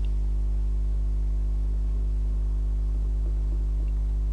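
Steady low electrical hum with a stack of evenly spaced overtones, unchanging in level and pitch.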